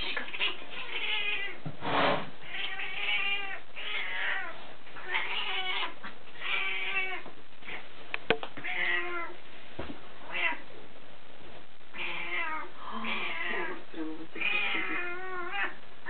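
Burmese cats meowing over and over, a dozen or so short wavering calls, with a single sharp tap about eight seconds in.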